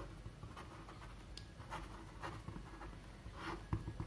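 Pen writing on paper: a run of faint, short scratching strokes as words are written, with one sharper tap shortly before the end.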